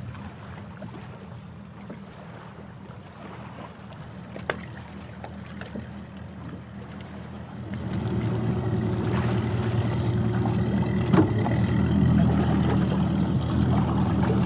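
Mercury Pro XS outboard motor running with a steady low hum, getting noticeably louder about eight seconds in.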